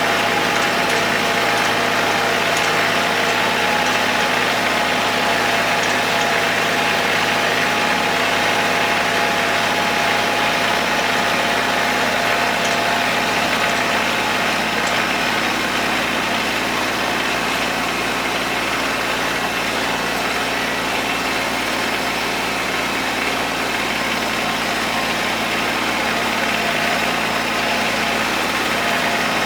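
Kubota tractor's diesel engine humming steadily as it pulls a Rhino hay tedder spreading cut hay to dry.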